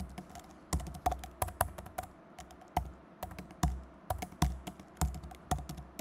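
Irregular clicking and tapping of keys or hard taps on a desk surface, about fifteen sharp clicks with dull thuds under them, roughly two to three a second, with a short pause about two seconds in.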